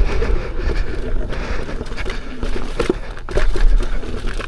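Lynx electric unicycle riding fast over a rough dirt trail: its tyre crunches and knocks over the ground with frequent irregular clatters, under a steady rumble of wind on the microphone.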